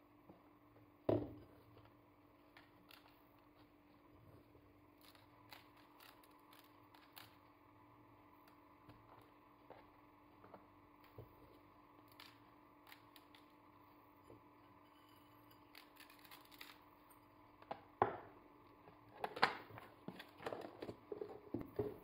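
Hands working raw poultry fillets and coarse salt in a plastic food container: faint scattered ticks and rustles, a single knock about a second in, and louder plastic clatter near the end as the container and its lid are handled.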